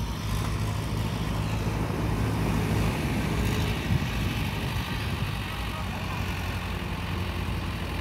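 Farm tractor engine running steadily at idle, a low even hum.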